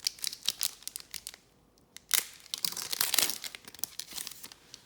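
A trading-card pack wrapper crinkling and tearing as it is ripped open. The crackling comes in two spells: over the first second and a half, then louder from about two seconds in to past three and a half.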